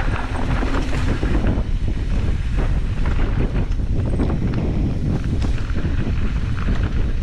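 Mountain bike riding over a loose, rocky dirt trail: wind buffets the GoPro's microphone in a steady rumble, while the knobby tyres crunch over gravel with many small clicks and rattles.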